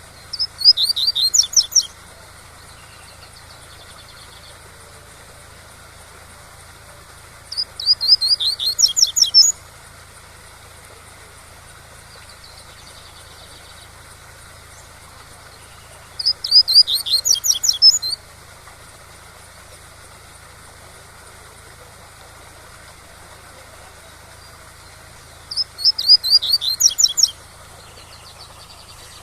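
Double-collared seedeater (coleiro) singing the tui-tui song. It gives four phrases about eight to nine seconds apart, each a quick run of sharp, high, downslurred notes lasting under two seconds, over a steady rush of waterfall sound.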